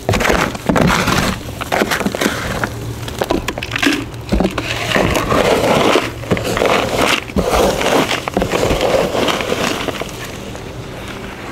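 Chunky perlite potting mix crunching and rustling as it is scooped and handled by hand, again and again with short gaps.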